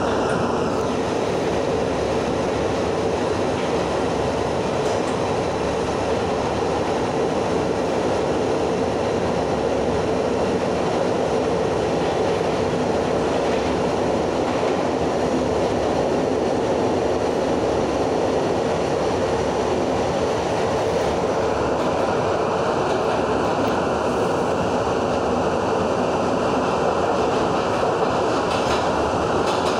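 R62 subway train running through a tunnel, heard from inside the car: a steady rumble and rushing of wheels on the rails. The higher rushing noise eases off about two-thirds of the way through.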